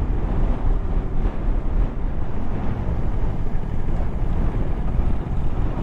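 Motorcycle riding at road speed, with its engine running and steady wind buffeting the microphone.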